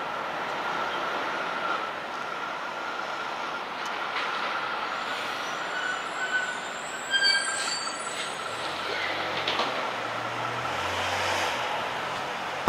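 City street traffic noise with a thin, high steady squeal running under it and a sharper squeal of several high tones about seven seconds in.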